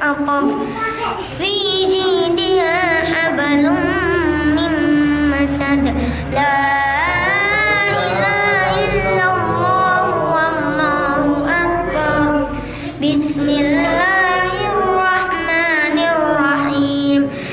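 A young boy's voice chanting Qur'anic recitation in Arabic, melodic and ornamented, with long held, wavering notes. The phrases are broken by three brief pauses for breath. The voice is picked up by a handheld microphone.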